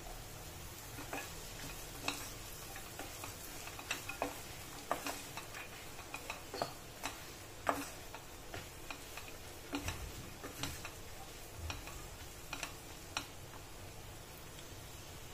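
Wooden spatula stirring vegetables in a stainless-steel pressure cooker: irregular clicks and knocks of wood against the steel pot, a few each second, over a faint sizzle. The knocking stops near the end.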